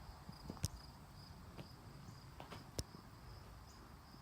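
Insects chirping in a steady, evenly pulsed high trill, with a few sharp clicks over it, the loudest about half a second in and just under three seconds in.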